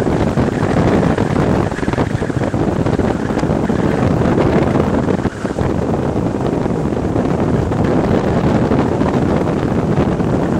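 Bass boat under way on its outboard: a steady rush of wind buffeting the microphone, mixed with the noise of the hull running over the water.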